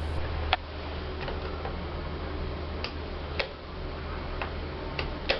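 About seven sharp clicks at uneven intervals inside a swing-door lift car that will not move, over a low steady hum.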